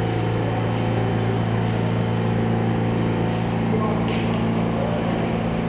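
A subway train standing in the station with its doors open, its equipment giving off a steady low hum made of several tones. There is a short hiss about four seconds in.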